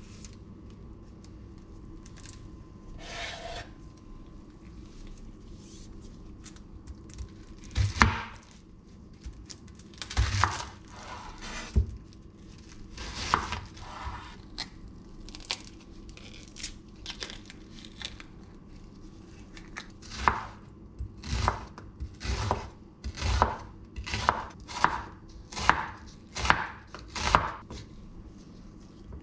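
Kitchen knife slicing a red onion on a wooden cutting board, each cut ending in a knock of the blade on the wood. The cuts are scattered at first, then come as a steadier run of about one a second over the last ten seconds.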